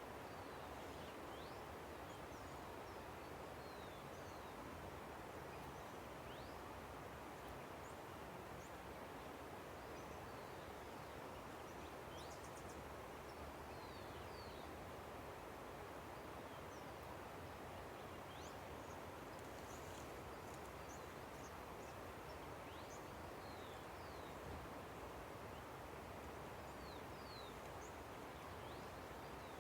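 A river rushing steadily, with small birds chirping over it in short, high chirps scattered throughout.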